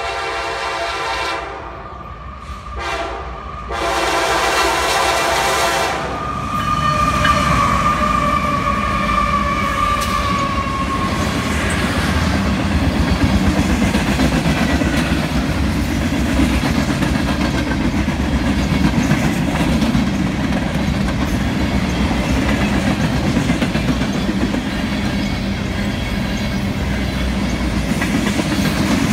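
Freight train horn sounding three blasts in a long, short, long pattern as the CSX diesel locomotives approach. A whine falling slightly in pitch follows as they pass. Then comes the steady rumble and clickety-clack of refrigerated boxcars rolling past on jointed track.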